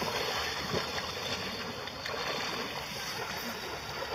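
A man swimming through icy pond water, splashing and breaking thin ice with his arms, with small clicks of ice among the steady splashing.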